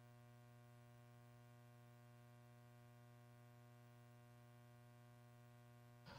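Near silence with a faint, steady electrical hum. Sound cuts back in at the very end.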